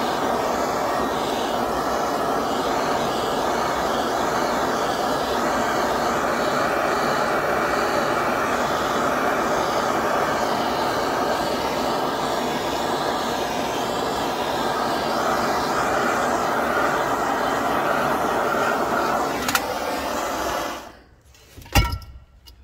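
Heat gun blowing steadily while it heats asphalt-based sound deadener until it smokes and softens. Near the end there is a click, the blowing stops, and a single knock follows.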